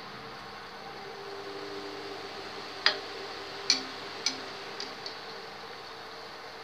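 Bread gulab jamun balls deep-frying in oil in an aluminium kadhai with a steady gentle sizzle, while a steel spoon clinks against the pan five times: three sharp clinks from about three seconds in, then two fainter ones.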